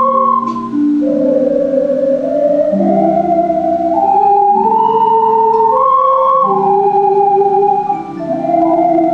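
Ocarinas playing a slow, legato melody in pure, flute-like held notes, with lower sustained notes underneath.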